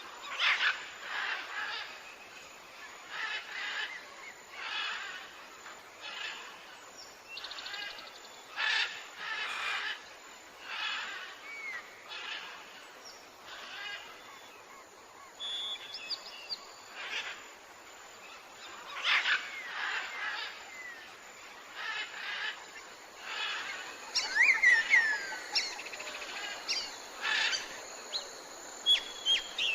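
Jungle ambience: birds calling and chirping over a chorus of insects, with pulsing calls repeating roughly once a second and a flurry of quick falling whistles about three-quarters of the way through.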